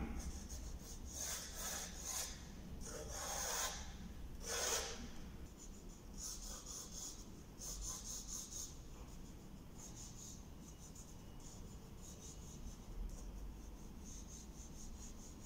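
Pencil sketching on paper on a drawing board: short scratchy strokes, the strongest in the first five seconds, then lighter, fainter strokes.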